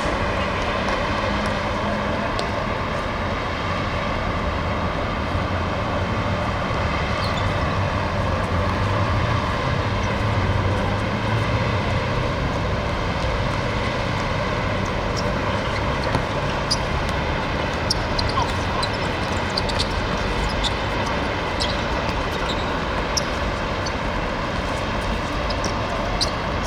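Steady background rumble, with scattered short knocks.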